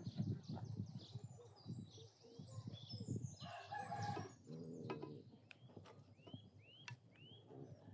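A rooster crows once, about three and a half seconds in, lasting about a second, with small birds chirping around it.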